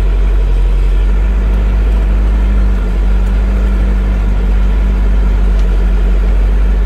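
Diesel engine of a Mercedes-Benz 608 D motorhome running steadily: a loud, even, low drone.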